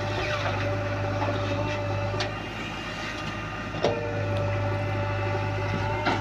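JCB backhoe loader's diesel engine running steadily under a constant whine, with a few sharp metallic knocks, about two and four seconds in and near the end, as the machine works.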